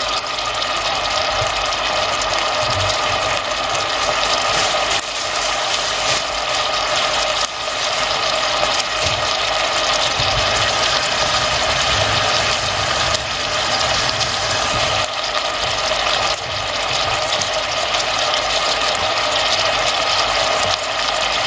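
Chopped onion and squash cooking in a stainless-steel saucepan, giving a steady sizzle with fine crackling.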